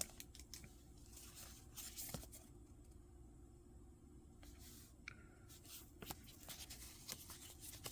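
Near silence with faint, scattered rustles and light clicks of Pokémon trading cards being handled and slid against one another.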